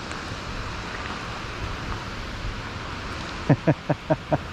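Steady outdoor wind and water noise rushing on the microphone. About three and a half seconds in comes a quick run of about six short, pitched vocal sounds, some five a second.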